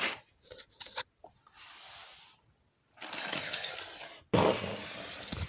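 Handling noise from plastic Lego toy boats and a handheld camera being moved about: a few sharp clicks, then several short bursts of rustling, scraping hiss.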